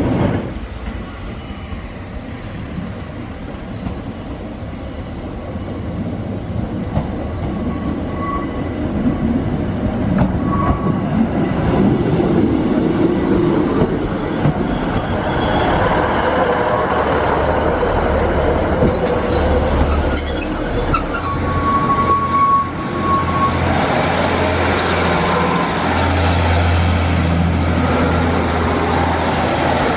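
Sprinter-family diesel multiple-unit trains running along the track, with a rumble of wheels on rail and a brief high wheel squeal partway through. Near the end comes the steady low drone of a Class 156's diesel engine as it pulls away.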